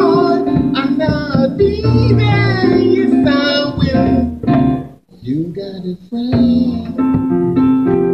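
A man singing a song into a microphone, with tabla drums and instrumental accompaniment; the music drops away briefly about five seconds in.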